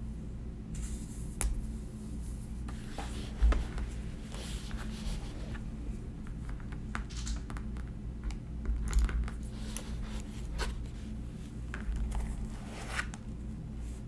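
Hands handling paper close up: fingers rubbing a sticker down onto a spiral notebook page, brushing over book pages, and lifting the notebook. Irregular soft rustles and light taps, the sharpest tap about three and a half seconds in.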